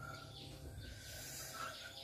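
Faint outdoor background with a few brief, faint bird chirps over a low steady hum.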